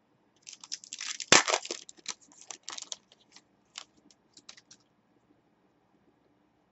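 A trading-card pack wrapper torn open and crinkled by hand: a run of crackling for about two and a half seconds with the loudest rip about a second in, then a few scattered crinkles.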